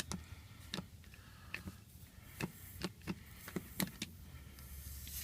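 Irregular light clicks as a sheet metal screw is turned out of a punctured tire, then, near the end, air starting to hiss out of the tire through the screw hole.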